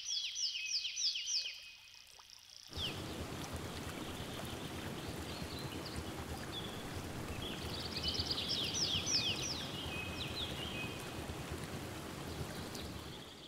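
Birds chirping in quick descending notes, then, about three seconds in, the steady rush of a flowing stream, with birds chirping over it again midway.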